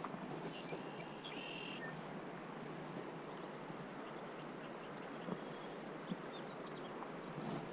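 Small birds calling over a steady outdoor hiss: a couple of short whistled notes about a second and a half in, and a quick run of high, falling chirps around six seconds in.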